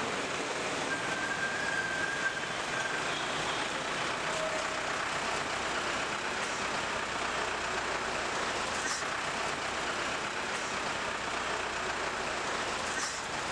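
Busy street traffic: a steady wash of engine and road noise, with a short held high tone, like a vehicle horn, about a second in.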